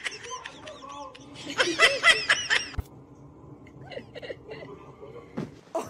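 A person laughing in a run of short rhythmic pulses, with a sharp click about three seconds in, then fainter scattered sounds.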